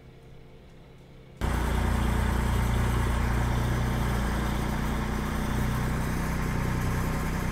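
Farm tractor engine running steadily and loud as it works the garden rows, cutting in abruptly about a second and a half in; before that only a faint low hum.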